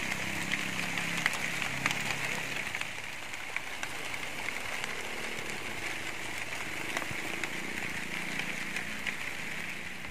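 Outdoor field ambience: a steady high hiss, with a faint low hum that comes and goes and scattered light ticks.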